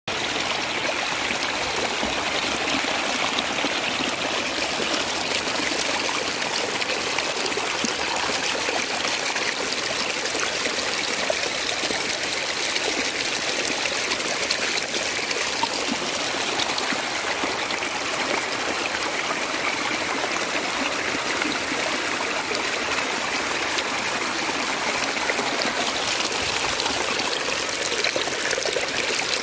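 Rainwater running and trickling steadily in heavy rain, a constant rush of flowing water with no let-up.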